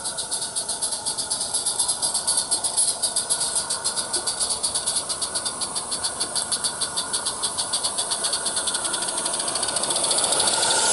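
Roundhouse Lady Anne live steam locomotive chuffing in a steady rhythm of about six exhaust beats a second, growing louder as it approaches. Near the end comes a louder hiss of steam as it passes close.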